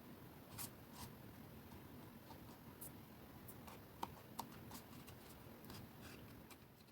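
Near silence with a few faint, scattered taps and rustles of cardstock pieces being handled and pressed together.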